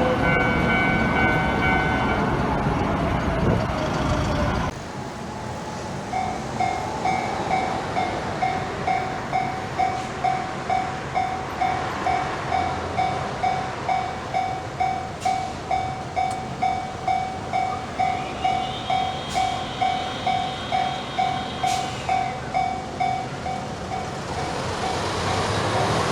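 A train passes loudly with a falling motor whine, stopping abruptly about five seconds in. Then a Japanese level-crossing warning bell rings a steady "kan-kan" about twice a second, and train noise builds again near the end.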